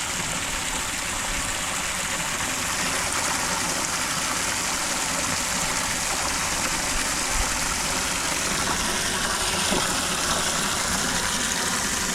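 Water gushing steadily from a hose into a metal water tank as it fills.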